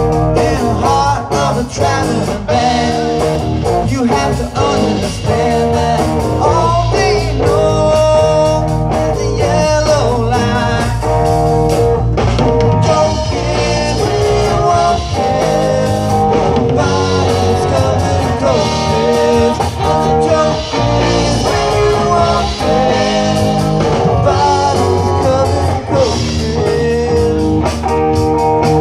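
Live rock band playing amplified music: electric guitars, bass and drum kit, with a voice singing over them.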